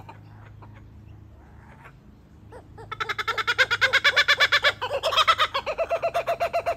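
Laughing kookaburras calling: faint, scattered chuckles at first, then from about three seconds in a loud, rapid rhythmic laughing chorus of about eight notes a second, climbing higher in pitch briefly near five seconds.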